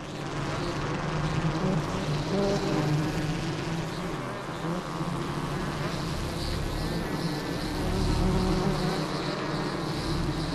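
A colony of honeybees buzzing in a dense swarm, many wingbeat tones overlapping into a continuous drone.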